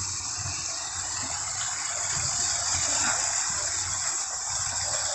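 Steady rush of falling water from a decorative waterfall.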